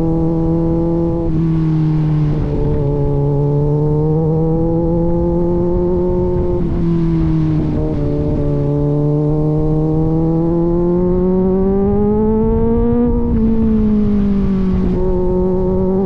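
Kawasaki Z900's inline-four running through an aftermarket AR exhaust while riding, holding a steady note whose revs climb slowly and drop back at gear changes, the biggest climb and drop about thirteen seconds in.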